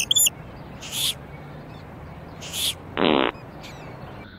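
Two short sniffs about a second and a half apart: a person smelling a found cigarette to check it for marijuana. A brief low buzzy sound from the mouth follows. A songbird's rapid, repeated chirping is heard at the very start.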